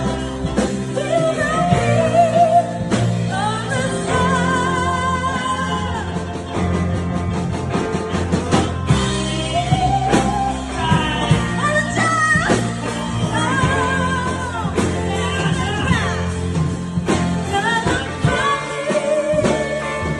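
Slow rock ballad played by a band, with a singer's sustained melody line in strong vibrato over steady bass and chordal accompaniment.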